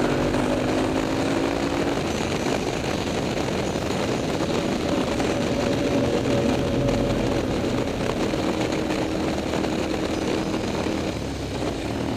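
KTM 990 SMT's V-twin engine running through a LeoVince aftermarket exhaust while under way, its pitch shifting a little with the throttle, over a steady rushing noise.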